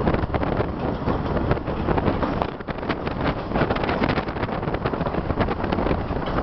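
Chepe passenger train moving along the track, heard from an open coach window. A dense, rapid, irregular clatter of wheels on the rails and the coach rattling, with wind buffeting the microphone.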